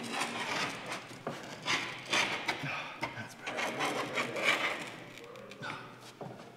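Hand tool scraping and prying at the rubber seal around a truck's windshield glass, in uneven rubbing strokes with a few sharp clicks.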